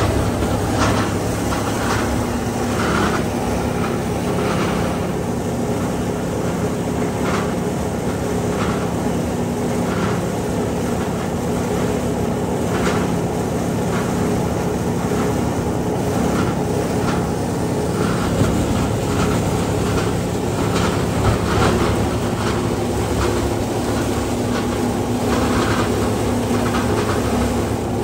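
Plastic film grinder running while cutting film, its rotary blades chopping against the stationary blades: a steady motor and rotor hum with irregular crackling and clatter as pieces of film are cut.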